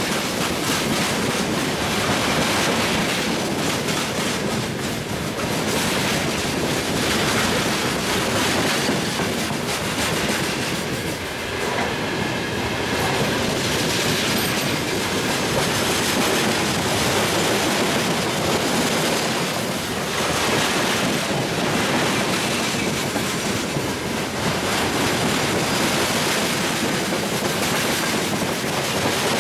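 A long freight train's wagons (tank cars, then hopper and box cars) rolling past close by. Steady wheel-on-rail noise with the clickety-clack of wheels over the rail joints.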